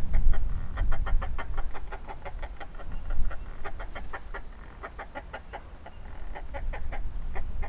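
Northern fulmars cackling: a rapid run of harsh, clucking notes, about five or six a second, fading a little in the middle and picking up again near the end, over a low wind rumble on the microphone.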